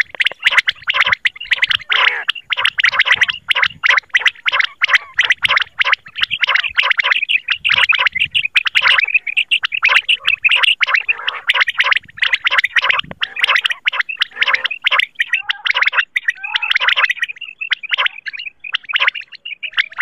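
Common quail (batair) calls from a quail-hunting lure recording: a loud, dense run of short, rapidly repeated notes with only brief pauses.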